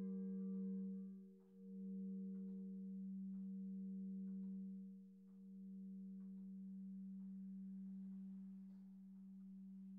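Lingering hum of swinging church bells from the Otto foundry after the last clapper strike: a low steady tone with two fainter higher partials, fading slowly and dipping twice in a slow beat. Faint clicks come about once a second from the swinging bells.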